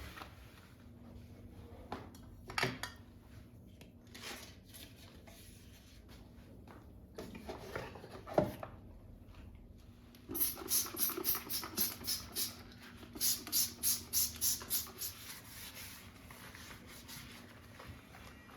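Kitchen handling sounds: a few scattered knocks and clicks, then two runs of quick rhythmic rubbing strokes, about four to five a second.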